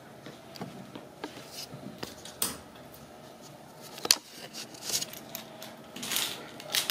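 Ragdoll kittens playing on a hardwood floor and rug: scattered light clicks, taps and short rustles, with one sharper knock about four seconds in and a longer rustle near the end.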